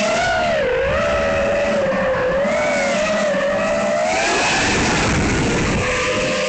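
SpeedyBee Mario 5 XH FPV quadcopter's brushless motors whining, the pitch sliding up and down with the throttle: a dip about a second in and a rise a little past the middle. Wind rushes across the drone's onboard microphone underneath.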